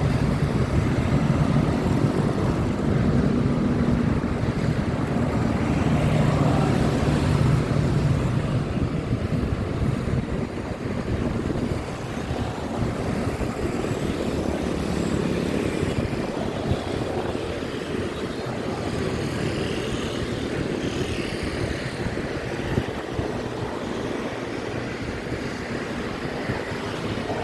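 City road traffic: motor vehicles running and passing on a street, a steady rumble that is louder for about the first ten seconds and then eases off a little.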